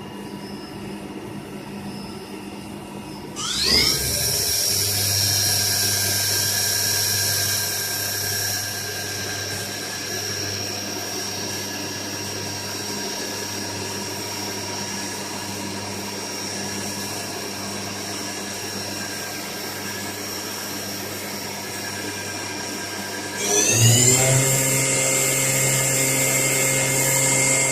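Machine-tool spindle on a QP 2440L running up to speed and holding there with a steady high whine over a low hum, which the owner takes for an abnormal sound. About three and a half seconds in, the whine rises in pitch as the spindle accelerates. Near the end it climbs again and settles louder at a higher speed.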